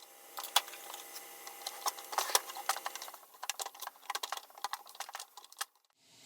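A hand tool scraping and picking gray electrical putty out from around the wires in a robotic pool cleaner's motor housing: an irregular run of clicks and short scrapes, with a few sharper taps about half a second and two and a half seconds in.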